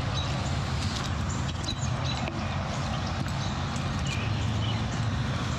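Footsteps walking through grass and fallen leaves, over a steady low rumble on the microphone, with a few faint high chirps.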